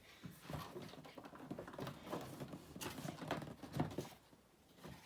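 Packaging being handled during an unboxing: irregular rustling with scattered small clicks and taps.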